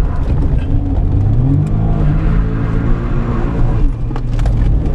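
Turbocharged 657cc three-cylinder engine of a Suzuki Cappuccino kei car under throttle. It revs up between about one and two seconds in, holds there, then eases off near the end.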